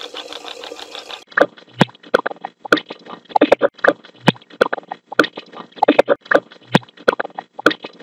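A kettle fountain's running water makes a steady noise for about a second. Then a noise-suppressed phone recording of it plays: choppy, clanky fragments of voice-like sound among sharp clicks, which the experimenter hears as 'Got to speak to it, right, he wants Dieter'.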